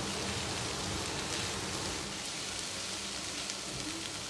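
Chopped vegetables and mushrooms sautéing in butter in a non-stick frying pan, a steady, even sizzle.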